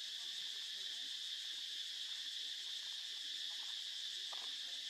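Steady, high-pitched insect drone of crickets or cicadas, unbroken throughout, with a couple of faint short calls near the end.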